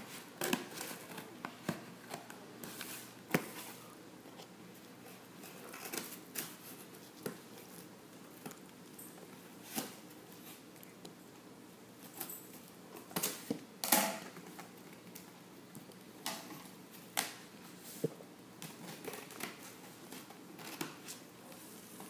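Scissors snipping and scraping along the packing tape on a cardboard shipping box, in irregular clicks with the cardboard rustling. There is a louder run of snips just past the middle.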